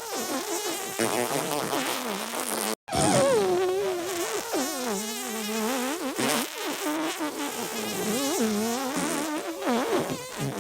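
Layered cartoon-style fart sound effects, many overlapping and wavering up and down in pitch without pause, cutting out for a split second just under three seconds in.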